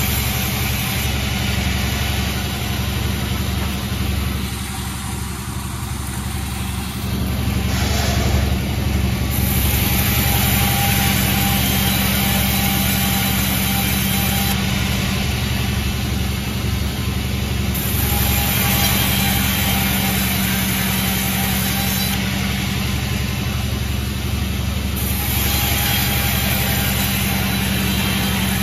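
Sawmill machinery running steadily with a constant engine-like hum, dipping briefly about five seconds in before returning to full level.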